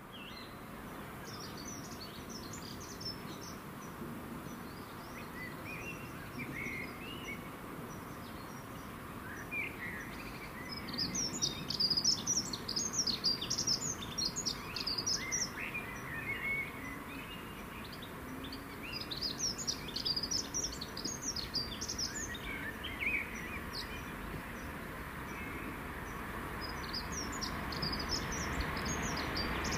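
Songbirds singing in repeated bursts of high chirps and trills over a steady low background hum. Near the end a broad noise builds up as a train approaches.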